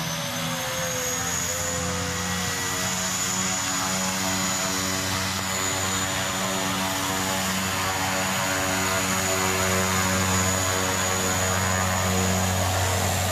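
Single-engine turboprop jump plane taxiing closer on grass, a steady turbine whine over the low propeller drone. It grows gradually louder as the plane approaches.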